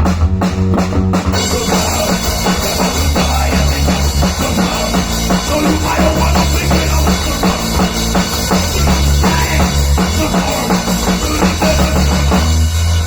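Bass guitar and drum kit playing a rock piece together, a low repeated bass line under a steady drum beat. The full drums come in about a second in.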